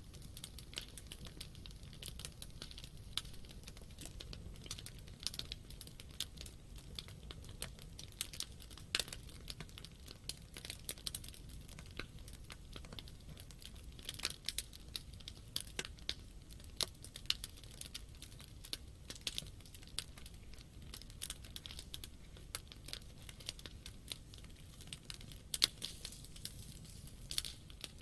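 Wood campfire crackling and popping: irregular sharp snaps scattered throughout, over a low steady rumble of the burning fire.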